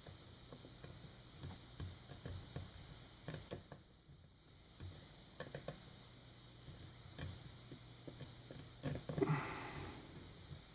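Lock pick scratching and clicking inside an older Yale pin-tumbler padlock as its pins are worked, with faint irregular ticks and a louder clatter about nine seconds in. Much of the scratching is the pick rubbing the sides of the keyway.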